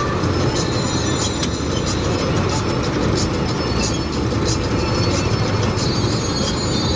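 Steady engine and road noise of a moving vehicle, with faint light rattles over it.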